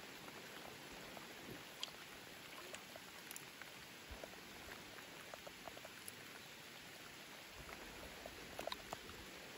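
Light rain falling on a lake surface: a faint, steady hiss with scattered small ticks, and a short cluster of clicks near the end.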